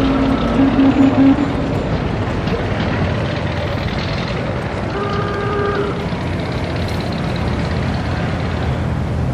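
1920s-style city street ambience: a steady wash of motor traffic, with a low car horn honking in quick pulses about four times in the first second and a half, and a single higher horn blast of about a second around five seconds in.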